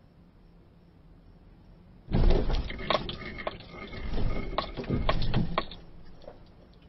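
An SUV reversing into a car: a sudden crunch of impact about two seconds in, then a few seconds of cracking and scraping of the body panels that dies away near the end.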